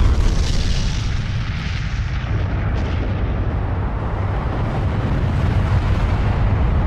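Sound effect of a huge explosion, a nuclear-style blast: a deep, continuous rumble that keeps rolling after the initial boom and swells again toward the end.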